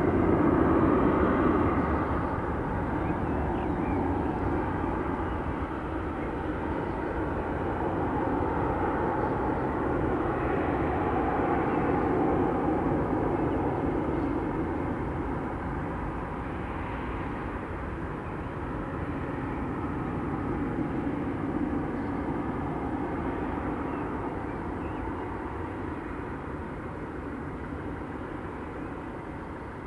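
Boeing 737-800's CFM56-7B jet engines rumbling as the airliner rolls out along the runway after landing. The sound is loudest at the start and slowly fades, with gentle swells, as the plane rolls away.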